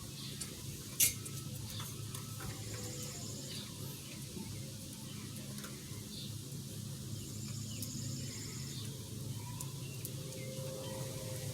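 Australian Shepherd puppies squeaking and whimpering faintly over a steady low hum, with small scattered clicks and one sharp click about a second in.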